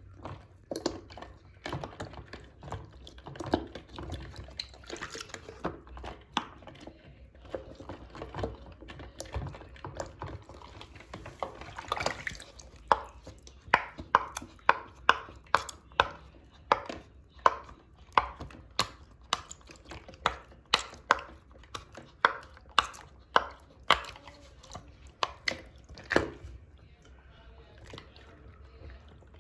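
Silicone pop-it fidget toys being pressed and popped in a sink of water: a run of sharp, wet pops, most regular at about one and a half a second in the middle and latter part, with water splashing and dripping.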